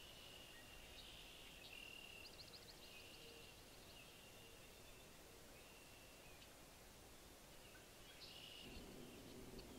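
Near silence with faint, distant high-pitched trilling calls of wild birds or frogs, including a quick ticking trill a little over two seconds in. A faint low sound comes in near the end.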